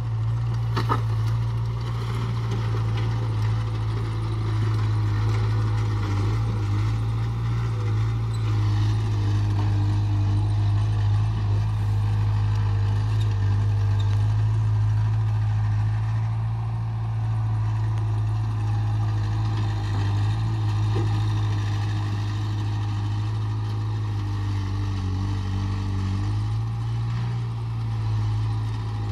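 A vehicle engine running steadily with a constant low hum, which dips briefly near the end.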